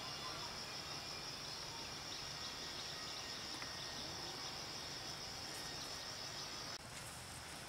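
Insects chirring in a steady, continuous high-pitched drone, which cuts off abruptly near the end and leaves fainter outdoor ambience.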